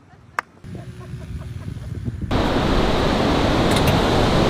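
Two sharp hand claps at the start. About two seconds in, a loud, steady rushing noise of wind and surf sets in abruptly.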